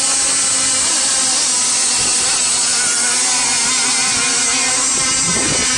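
Small two-stroke engines of radio-controlled racing boats, an outrigger and a hydroplane, running flat out across the water: a loud, steady high-pitched buzzing whine.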